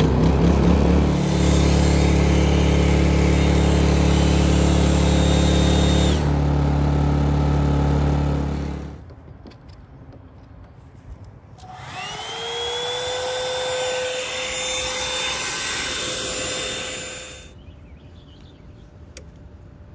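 Honda EU2000i inverter generator's single-cylinder four-stroke engine running steadily just after being started, an "old school racket", then stopping about nine seconds in. A few seconds later a hair dryer run from the power station spins up with a rising whine, runs steadily for about five seconds, and switches off.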